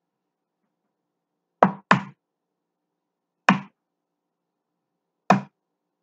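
An egg being knocked against the rim of a bowl to crack it. There are four sharp knocks: two in quick succession about one and a half seconds in, one near the middle, and one near the end.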